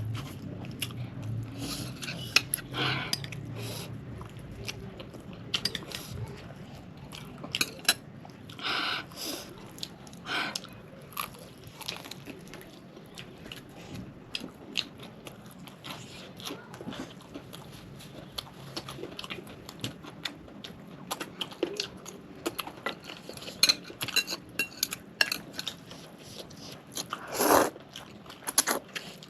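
Close-miked eating: crunchy bites into fried chicken and chewing, with irregular crunches and mouth clicks scattered throughout.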